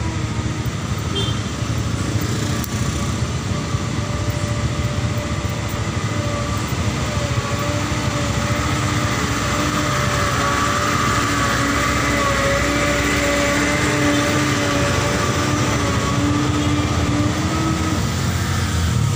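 Engines of slow-moving, jammed traffic running steadily. From about a third of the way in, a truck engine gets louder as the truck passes close by, its hum wavering slightly, then it eases off near the end.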